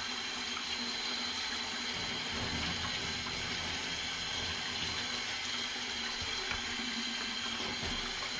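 Kitchen tap running a thin, steady stream into a stainless-steel sink, splashing over a salt-cured mackerel fillet as the salt is rinsed off it by hand.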